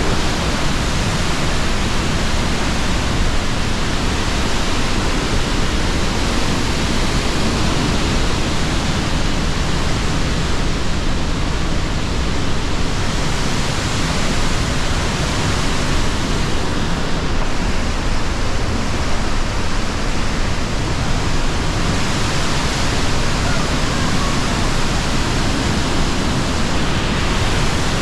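Pailón del Diablo, a large waterfall, roaring as a loud, steady rush of falling water.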